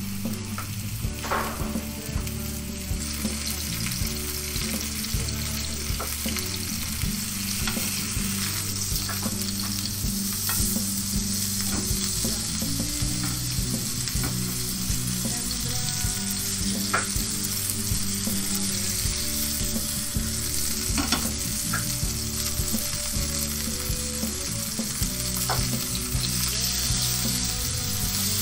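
Tuna loin searing in very hot sesame and olive oil in a frying pan: a steady sizzle with scattered pops and crackles.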